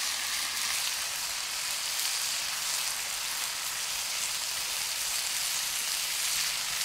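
Bacon, sausages, mushrooms and hash browns sizzling steadily in a cast iron multi-section frying pan over a campfire.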